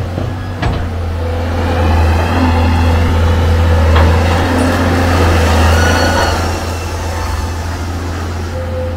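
Amphibious excavator's diesel engine running steadily with a deep drone, with a few higher wavering squeals and a couple of sharp knocks from the machine at work.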